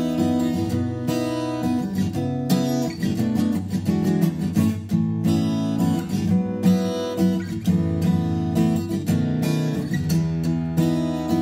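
Veelah V2-D dreadnought acoustic guitar played fingerstyle, with picked notes and strummed chords ringing on continuously.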